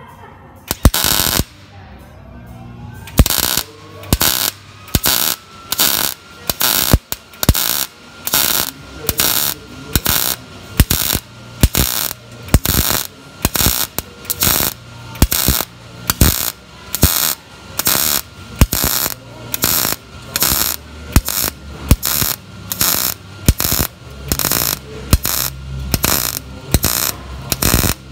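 MIG welding arc crackling in short bursts a little more than once a second, the trigger pulsed on and off by hand on hot settings with high wire speed so the thin 18-gauge sheet melts quickly without blowing through. A single burst comes first, then after a short pause the regular on-off rhythm runs on.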